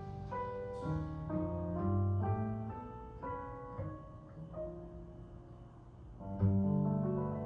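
Instrumental close of a slow jazz ballad: piano playing a run of separate notes over low bass notes, played back through home hi-fi speakers and heard in the room.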